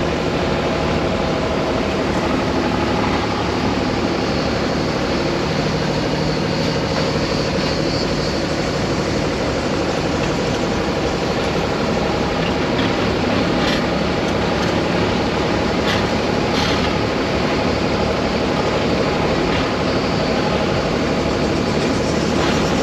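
Tractor's diesel engine running steadily as it tows a passenger trailer, heard from the trailer just behind it, with a few faint clicks midway.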